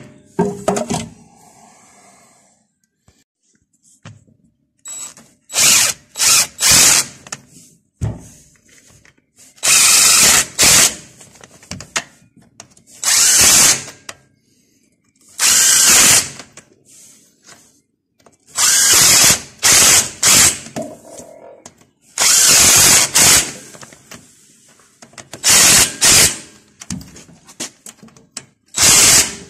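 A cordless drill-driver with a socket extension running in about nine short bursts of a second or two each, driving the bolts of a two-wheel tractor's gearbox cover.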